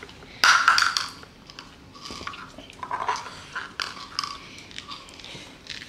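A small terrier licking and nibbling at a toddler's hands and a plastic pack she holds, with crinkling plastic and wet mouth sounds. The loudest rustle comes about half a second in, followed by scattered smaller clicks and rustles.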